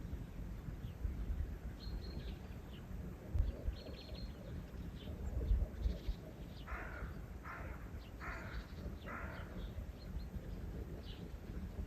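Small birds chirping faintly, and four harsh caws in a row, evenly spaced, a little past the middle. Under them runs a steady low outdoor rumble with a few dull low thumps.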